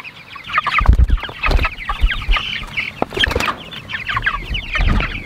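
A flock of meat chickens calling, many short high peeps and clucks overlapping continuously. A few dull low thumps come about a second in and again near the end.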